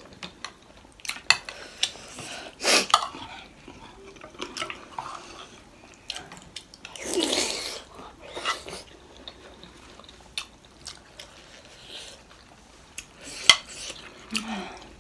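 Spoons and forks clinking and scraping on ceramic plates as two people eat momos, in scattered short clicks. About seven seconds in there is a longer wet slurping sound as a juicy momo is bitten.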